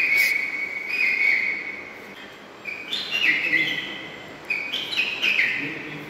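Recorded bird call played back from a museum display's speaker at the push of a button: clear whistled notes, one long held note, then two short phrases of stepped notes about two seconds apart.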